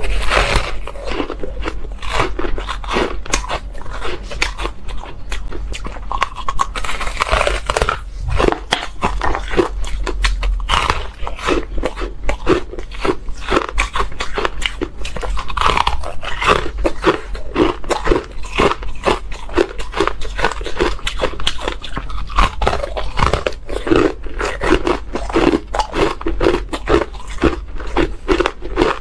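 A person biting and chewing soft crunchy ice close to a clip-on microphone: a dense, unbroken run of crisp crunches.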